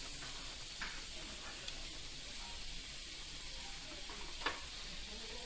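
Thin slices of meat sizzling steadily in melted beef tallow in a sukiyaki pan, with a light click about four and a half seconds in.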